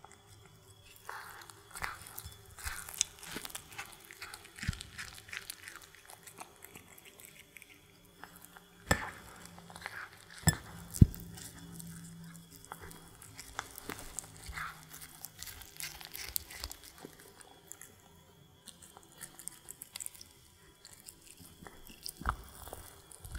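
A cat chewing and biting into a sausage in dough, with many small crunching and smacking strokes of the pastry. A few louder knocks come about nine to eleven seconds in.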